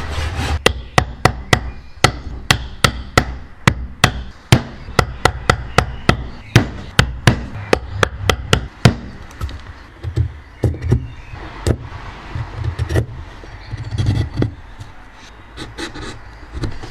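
Hammer striking wood in a quick steady rhythm of sharp blows, about three a second. About halfway through the blows give way to lighter, irregular taps and knocks.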